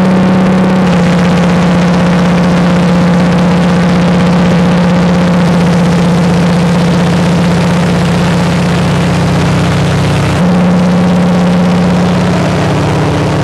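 De Havilland Beaver's engine and propeller drone, heard from inside the cockpit in level cruise flight. It is loud and steady, with a slight step in pitch and loudness about ten seconds in.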